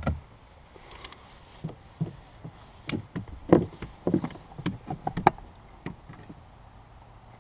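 Irregular knocks and clunks of a cordless drill and the bilge pump hose being handled against the hollow plastic hull of a small boat, with the loudest knocks in the second half; the drill itself is not running.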